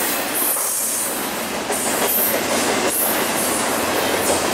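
Double-stack container cars of a BNSF freight train rolling past: a steady, loud rumble and clatter of steel wheels on rail, with a high hiss that comes and goes above it.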